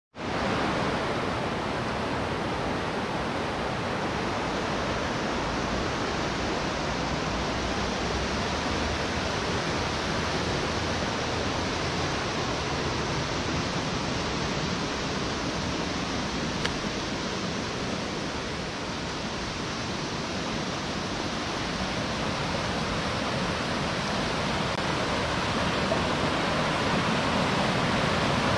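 River rapids rushing, a steady wash of white water that grows louder near the end.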